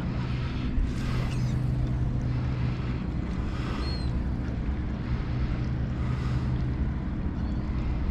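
Boat motor running steadily with a low hum, with wind rushing over the microphone.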